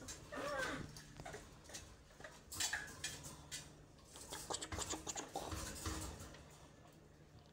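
A young monkey on a leash chain clambering over a wire cage and sink, with irregular light clicks and rattles from the cage and chain, and a short squeak about half a second in.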